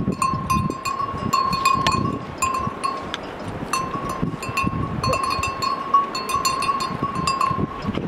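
Metal bell hanging from a dog's neck, clinking and ringing over and over as the dog eats, with the dog's chewing underneath.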